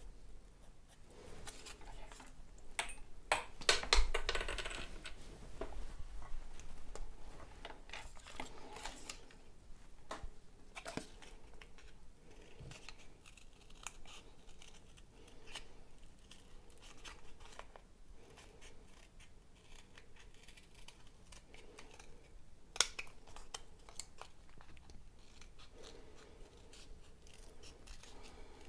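Felt-tip pen tracing on cardboard, then small scissors snipping through stiff white cardboard in short cuts, with the card rustling as it is handled. There is a louder rustle and clatter about four seconds in, and a single sharp click about three-quarters of the way through.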